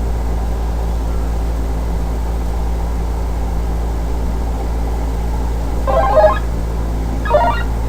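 A steady low electrical hum, with two short pitched blips near the end, about a second apart.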